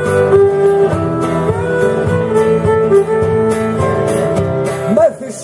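Live Greek band playing an instrumental passage between verses: plucked guitar and bouzouki over hand percussion, with a violin carrying the melody. Near the end the melody turns to sliding, bending notes.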